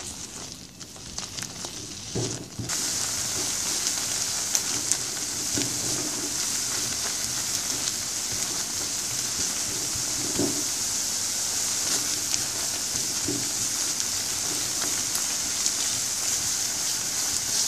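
Spice paste sizzling in a kadai as it is fried down without oil, a steady hiss that comes in suddenly about three seconds in, with occasional soft scrapes of a spatula stirring it.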